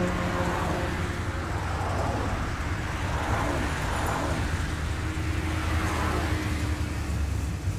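Car driving in road traffic: a steady low engine and road rumble, with the tyre and traffic noise swelling and fading a few times as other vehicles go by.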